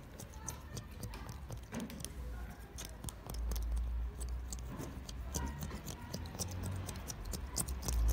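Razor blade scraping cured windshield-repair resin off car glass in many short, irregular strokes: a run of quick scratchy clicks over a low rumble.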